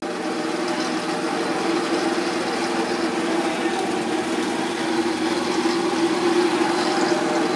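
An engine running steadily at idle, with an even hum that does not change.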